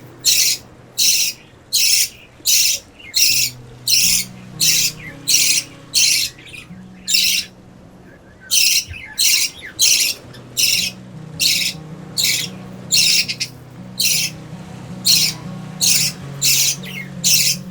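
Young budgerigar giving short, harsh, raspy squawks in a steady rapid series, about one and a half calls a second, with a brief pause near the middle. Soft background music runs underneath.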